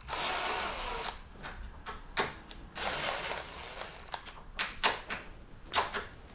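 Cordless power drill running in two short bursts of about a second each, driving M8 bolts into a UTV door hinge bracket. A steady high whine rides over each run, and light clicks and knocks from the tool and metal parts fall between the runs.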